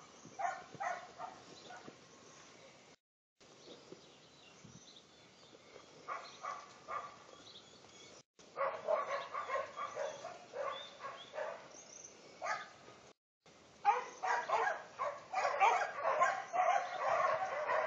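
A dog barking over and over in quick runs of short barks, sparse at first and near-continuous and loudest in the last few seconds.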